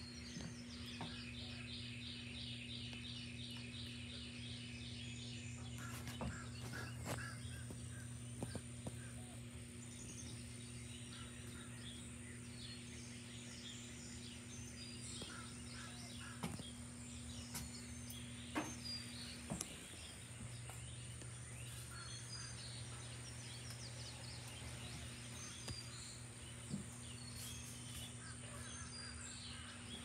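Worn ceiling fan running with a steady low motor hum and a few scattered, irregular clicks. Birds chirp throughout.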